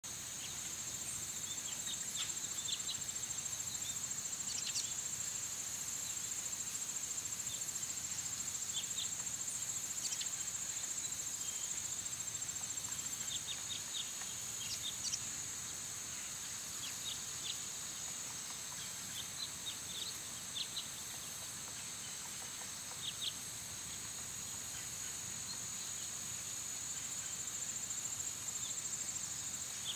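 Insects trilling steadily at a high pitch, with short, high bird chirps scattered through, more often in the second half.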